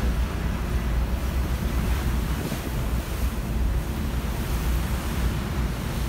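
Steady wind buffeting the microphone on the open deck of a moving ferry, with the rush of choppy harbor water beneath it.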